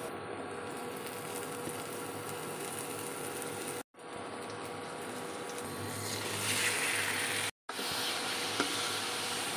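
Chopped onion, garlic, red pepper and ground meat sizzling in hot oil in a wok, stirred with a wooden spatula. The sizzle is steady, cuts out briefly twice, and grows louder and brighter after about six seconds, with a single small tap near the end.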